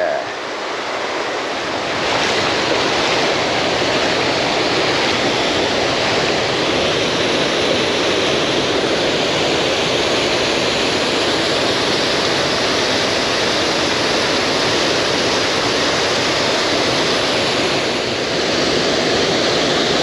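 Mountain stream rushing: a steady, loud roar of flowing water that grows louder about two seconds in.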